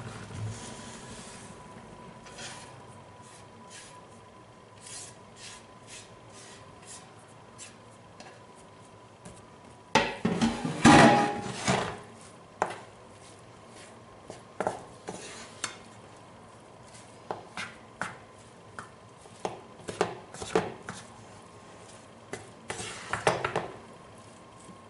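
Wooden spatula stirring and scraping a bulgur salad in a frying pan, with scattered knocks of the spatula against the pan. A louder burst of clatter comes about ten seconds in, then regular knocks as the mixing goes on.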